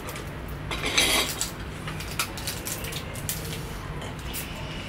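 Dishes and cutlery clinking and scraping while people eat, with a louder scrape about a second in and scattered sharp clicks.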